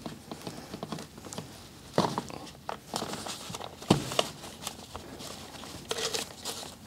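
Cloth robe being pulled off a plastic toy figure by hand: fabric rustling with scattered light taps and knocks, two sharper knocks about two and four seconds in.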